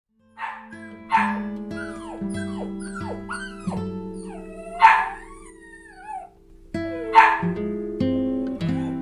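A dog barking and whining: sliding, whimpering yelps with three louder barks spread through, over background music.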